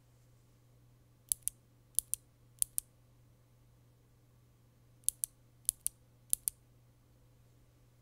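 A single lubed Gateron Milky Yellow linear keyboard switch pressed and released by hand six times, in two sets of three, each press giving a sharp double click as it bottoms out and springs back.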